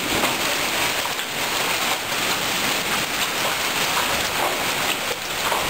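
Heavy rain pouring down steadily in a storm, a dense, even hiss of falling water.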